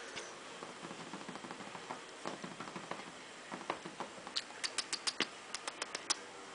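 Small puppy scrabbling and nosing about, making light scattered clicks and taps, then a quick run of about a dozen sharp clicks a little past halfway.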